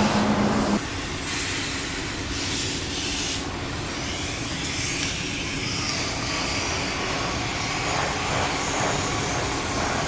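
Scania truck's diesel engine and road noise while driving. A loud steady drone drops away suddenly about a second in, leaving a lower steady running noise broken by a few short hisses in the first few seconds.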